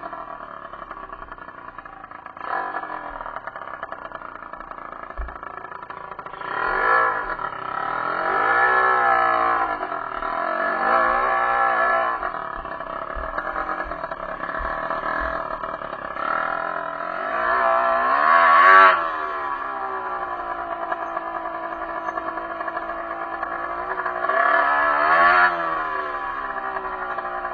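Derbi enduro motorcycle engine revving up and falling back again and again, in about half a dozen surges, with the hardest, loudest rev about two-thirds of the way through and steadier running in between.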